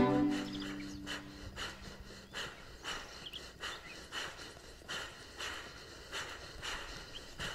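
A chord from a diatonic button accordion with strings rings out and fades away over the first second or two. Faint outdoor ambience follows, with a soft pulsing sound about twice a second and a few faint bird chirps.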